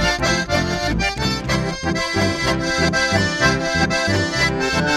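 Chamamé band playing live, a piano accordion leading over guitar and electric bass with a steady, even beat.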